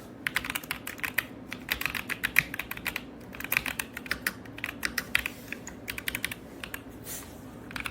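Typing on an RK Royal Kludge S98 mechanical keyboard with pale green tactile switches and PBT keycaps, stock and unmodified: fast runs of clacky keystrokes with short pauses between bursts.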